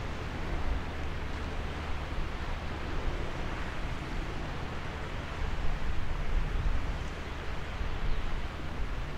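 Wind blowing across the microphone: a steady rushing noise with a low, gusty rumble that swells and drops.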